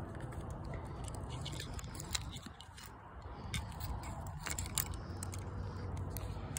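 Handling noise of a phone: cloth rubbing and scraping against the microphone, with scattered small clicks.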